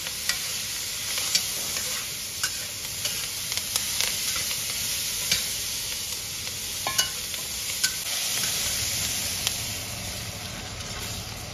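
Scallions, garlic slices and dried red chillies sizzling in hot oil in a wok, stir-fried to bring out their aroma, with a metal spatula clicking and scraping against the wok every second or so.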